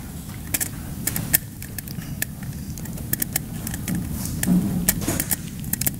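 Irregular small clicks and taps of a screwdriver and wire ends being worked into the screw terminals of a battery-management controller board, over a low steady room hum.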